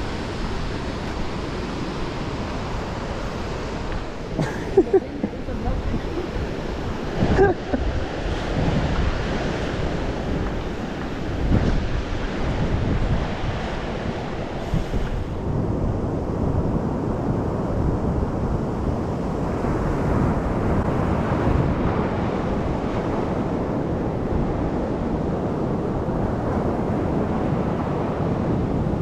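Ocean surf washing steadily onto the shore, with wind buffeting the microphone.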